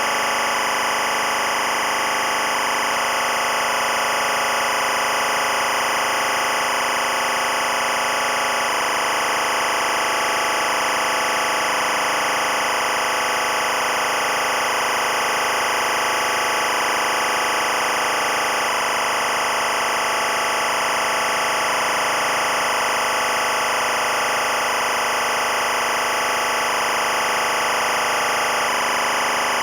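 Dense, steady electronic noise drone from the film's score, with a faint tone that pulses on and off about once a second.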